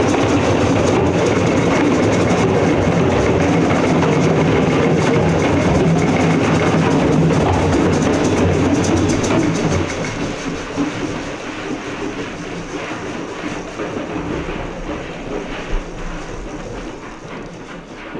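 A roomful of people playing hand drums together, tapping and rubbing the drumheads to imitate a rainstorm: a dense, loud patter of many hands that dies down gradually through the second half as the storm eases.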